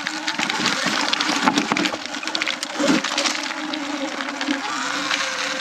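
Sur Ron X electric dirt bike riding a dirt trail. A steady, slightly wavering hum from the electric motor and drivetrain sits under dense crackling and clicking from the tyres over dirt, twigs and leaves.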